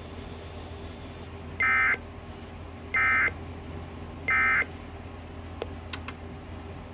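Emergency Alert System end-of-message code: three short, identical bursts of warbling data tones about a second and a half apart, over a low steady hum. They mark the end of the flood warning broadcast.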